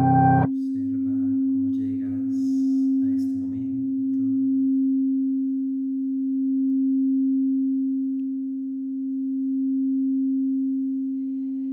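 A singing bowl ringing with one sustained tone that slowly swells and fades every few seconds. Music stops about half a second in, leaving the tone on its own.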